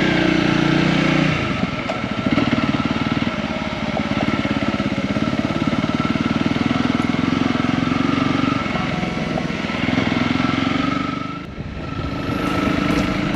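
Honda CRF250 single-cylinder four-stroke motorcycle engine pulling away and riding on, its note dropping and rising again several times as it changes gear, with a brief lull near the end.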